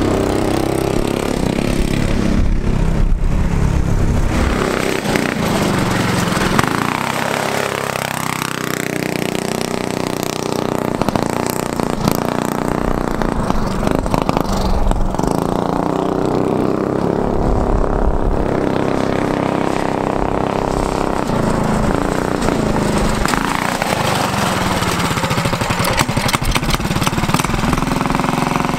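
Small four-stroke go-kart engine revving hard as the kart drives on dirt, its pitch falling and climbing back again a couple of times as the throttle is lifted and reapplied.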